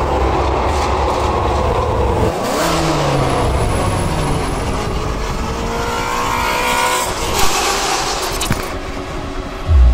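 Car engine running with road noise as the car drives by. About five seconds in, the engine revs up, its pitch rising for about two seconds before cutting off sharply.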